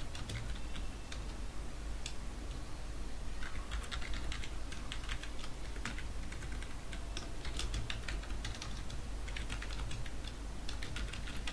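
Typing on a computer keyboard in quick bursts of keystrokes with short pauses between them, over a low steady hum.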